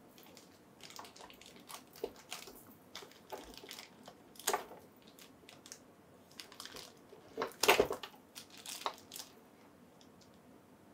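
Stiff packaging being forced and broken open by hand: an irregular series of cracks and crackles, the loudest burst about three-quarters of the way through.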